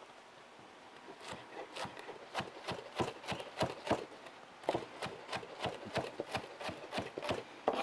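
A chef's knife finely shredding green cabbage on a cutting board: quick, irregular knife strokes tapping the board several times a second, starting about a second in.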